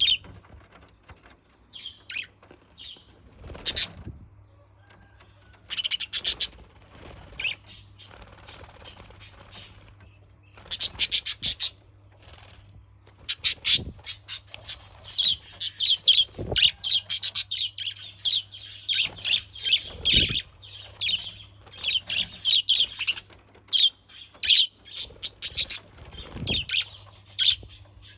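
Budgerigars chattering and chirping in quick bursts, sparse at first and then nearly nonstop in the second half, with a few soft low thuds mixed in.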